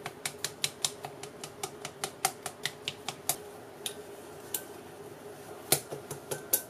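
Wooden chopsticks clicking against a glass bowl, about four or five taps a second, as eggs are beaten with grated cheese; the taps thin out briefly midway, then pick up again.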